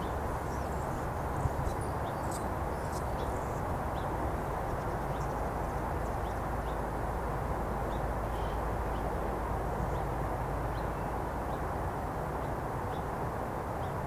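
Short, faint calls of small birds, scattered irregularly, over a steady low background rumble.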